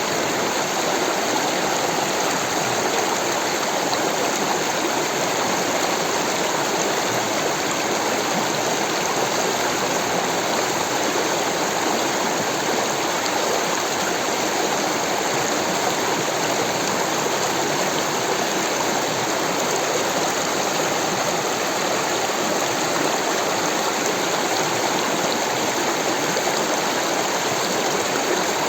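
Rushing water flowing steadily, an even, unbroken rush with no changes.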